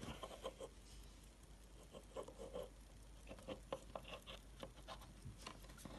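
Faint, irregular small clicks and rubbing of a metal pocket watch being turned over in the fingers.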